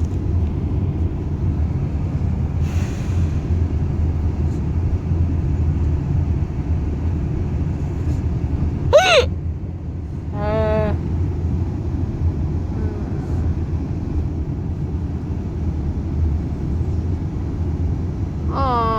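Steady road rumble inside a moving car. About nine seconds in comes a short, sharp high-pitched cry, then a longer wavering one a second later, and another falling cry near the end.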